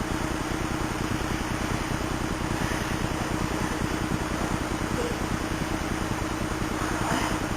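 A steady engine rumble with a fine, even pulse, running at a constant speed.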